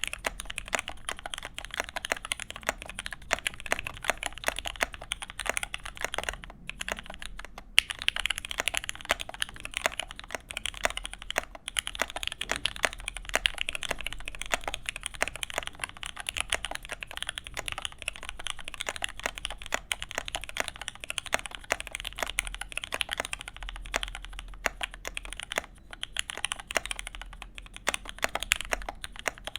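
Steady, fast typing on an OTD 'The Cheat' mechanical keyboard with vintage Cherry MX Black linear switches and CRP keycaps: a continuous run of key clacks, broken by two short pauses about six to eight seconds in.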